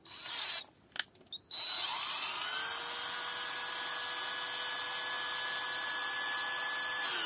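Parkside PBSA 12 12 V cordless drill running with no load: after a brief noise and a click, the motor spins up over about a second and holds a steady, a bit loud whine for about five seconds before stopping at the end.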